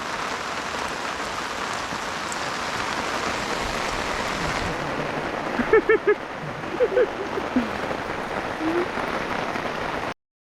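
Heavy rain falling, a steady even hiss, with several short pitched sounds about six to nine seconds in. The sound cuts off suddenly just before the end.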